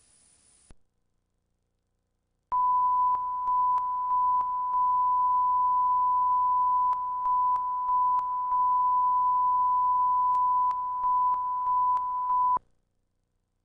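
Steady single-pitch line-up test tone that starts about two and a half seconds in and cuts off sharply about a second before the end. It is broken by a dozen or so brief dips in level and small clicks.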